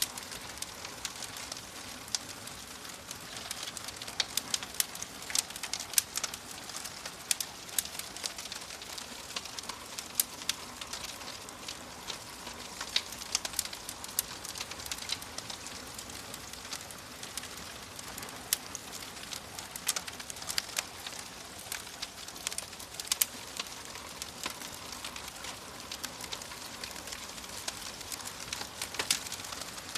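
Wood fire crackling in a fireplace: a steady hiss with frequent sharp pops and snaps at irregular intervals.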